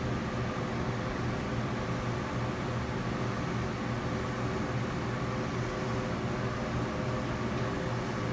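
A steady machine hum with hiss, with a low drone and a few fainter steady tones above it.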